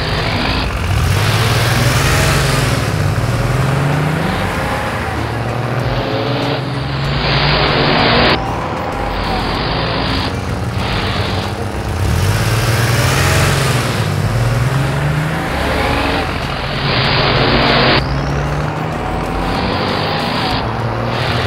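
Cartoon car-racing sound effects: several engines revving, their pitch rising and falling, with bursts of rushing noise. The same sequence plays twice, about ten seconds apart.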